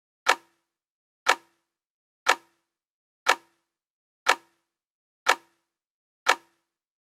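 Sharp, even ticking, one tick each second, seven in all, with dead silence between, like a clock-tick sound effect.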